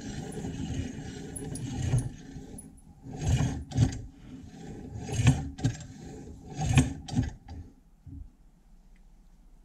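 Restored Enterprise No. 12 tinned cast-iron meat grinder being cranked by hand while empty: the auger turns with a continuous scraping rub for about two seconds, then slower turns bring a louder scrape and clunk about every second and a half. The sound dies away about three-quarters of the way through.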